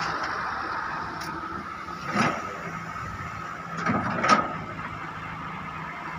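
Wheeled excavator running steadily with a constant high whine, and two crunches of its bucket digging into a pile of crushed stone, about two seconds in and again near four seconds, the second the louder.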